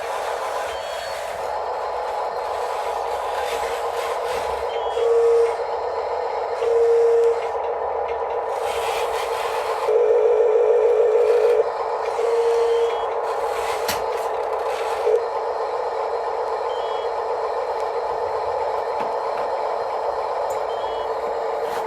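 Radio-controlled construction machines running, their electric motors giving a steady whine, while a reversing beeper sounds: two short beeps in the first third, a longer rapid run of beeps around the middle, then another short beep. A sharp knock comes a little after the middle.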